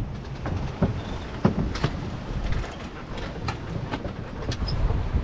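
Wind rumbling on the microphone on the deck of a sailing yacht under sail, with scattered short clicks and knocks.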